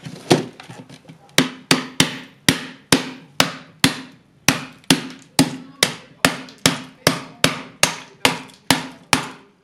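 Hammer beating the plastic housing of a steam iron: one hit, then after about a second a steady run of blows, about two and a half a second and speeding up slightly toward the end, each with a short ring.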